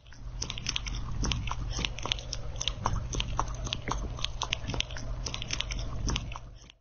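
Kitten crunching dry kibble: quick, irregular crunches several times a second, over a low steady hum.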